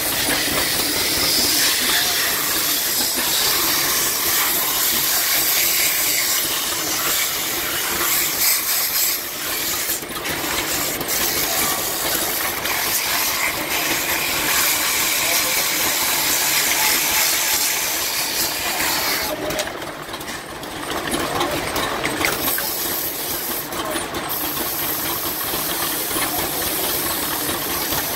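Sandpaper held against a wooden baseball bat spinning on a belt-driven wood lathe: a steady hiss of sanding over the low running of the lathe drive, easing off briefly about two-thirds of the way through.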